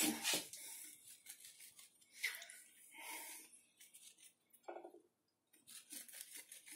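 Faint handling sounds of a kitchen knife and a sponge cake on a tiled worktop: a few light clicks, the loudest about the start, and brief soft scrapes.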